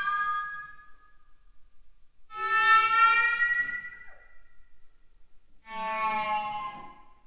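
Electric guitar playing sustained notes that swell in and fade away, with a smooth violin-like tone and a slight upward bend in pitch. One note fades out in the first second, another swells in at about two seconds and dies away by four, and a third sounds near the end.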